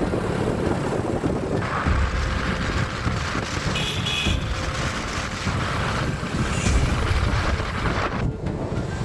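Motorcycles riding by in a group, engines running, with wind buffeting the microphone. A brief high tone sounds about four seconds in.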